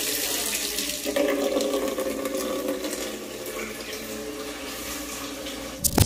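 Kitchen tap running water into a stainless-steel rice cooker pot in the sink as the pot is rinsed: a steady splashing on the metal with a faint low ring under it. A couple of sharp clicks right at the end.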